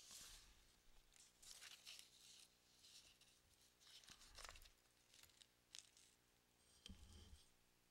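Near silence, broken by faint rustling and handling noises at a desk, a few small clicks, and a soft low bump about seven seconds in.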